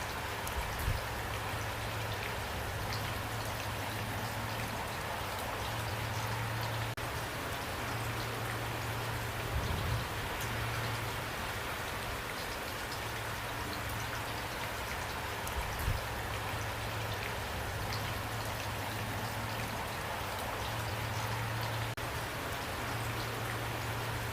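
Steady rain falling and pattering on a surface, an even hiss with scattered drop impacts. A few soft low thumps stand out, about a second in, near the middle and about two-thirds through.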